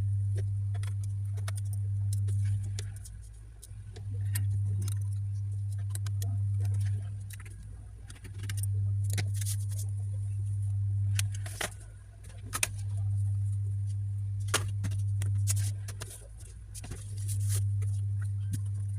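Scattered light clicks and taps of small parts being handled during a laptop SSD and RAM upgrade, over a low hum that swells and fades about every four and a half seconds.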